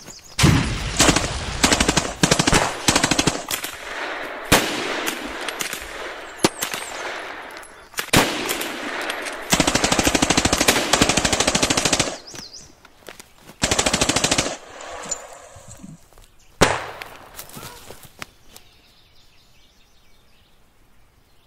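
Battle gunfire: long strings of rapid automatic fire, several guns going at once, for about fourteen seconds. A single sharp shot follows a couple of seconds later.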